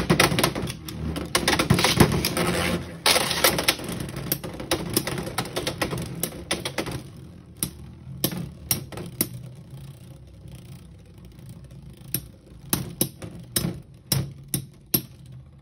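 Two Beyblade X spinning tops (Chain Incendio and Hells Chain) whirring in a plastic stadium and clattering against each other and the stadium walls. The clatter comes in dense, rapid clicks for about the first seven seconds, then only in occasional separate knocks as the tops spin on.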